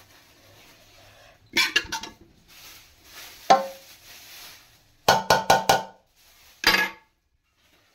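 Metal spoon knocking against a large metal cooking pot while spreading food over rice: a few quick clanks, a single ringing strike, then a fast run of four or five clanks and one more near the end.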